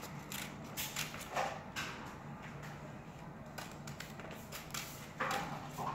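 Scissors snipping through a sheet of paper, with the paper rustling: a string of short, irregular snips, a couple of them louder.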